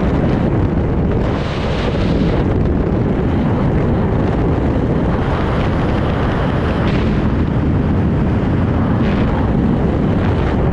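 Rushing wind of a skydiving freefall buffeting the camera's microphone: a loud, steady rush of air with a few brief hissing swells.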